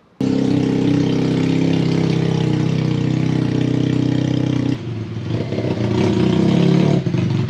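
Benelli 302S motorcycle's parallel-twin engine running as the bike rides toward the camera. The sound starts abruptly just after the beginning, holds steady, drops lower about five seconds in, then builds again near the end.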